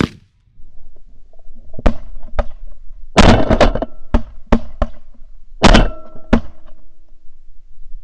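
Shotguns from several hunters firing a volley of about a dozen shots, starting about two seconds in and coming in quick clusters of two to four.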